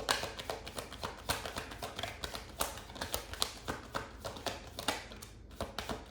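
Tarot cards being shuffled and handled: a run of short, irregular taps and flicks of card against card.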